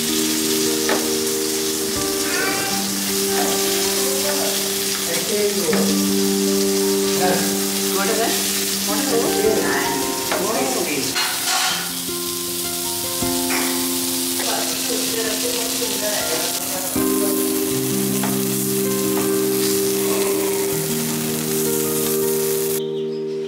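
Masala-coated fish pieces shallow-frying in hot oil in a nonstick pan, sizzling steadily with scattered pops and the scrape of a spatula turning them. Soft background music with long held notes plays underneath. The sizzle cuts off just before the end.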